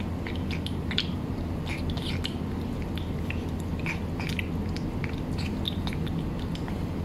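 A cat eating wet cat food from a tray: quick, irregular wet clicks of chewing and lapping, over a steady low hum.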